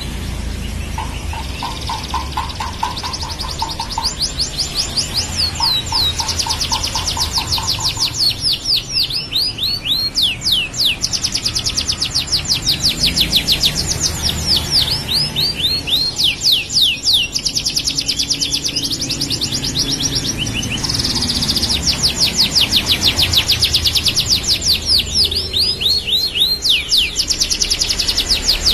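Domestic canary in full song, a long unbroken run of fast trills and rapid repeated notes, some falling in pitch. A lower, slower pulsed trill comes in twice in the first eight seconds. A low rumble runs underneath.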